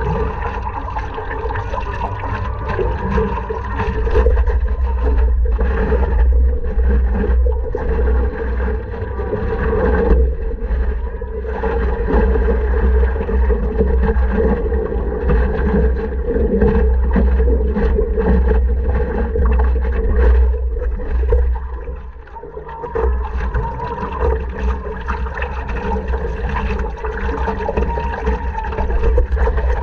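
Water splashing and rushing around a stand-up paddleboard under steady paddle strokes, with a low wind rumble on the board-mounted microphone. It dips briefly about two-thirds of the way through.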